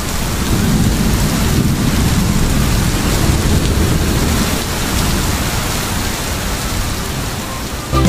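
Steady hiss of rain with a low rumble underneath, on a wet road.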